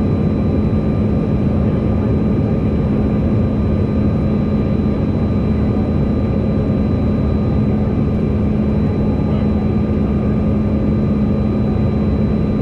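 Steady cabin noise of a Mitsubishi CRJ-1000 regional jet with rear-mounted GE CF34 turbofans, heard inside the cabin: an even rushing drone with a constant low hum and fainter high whining tones.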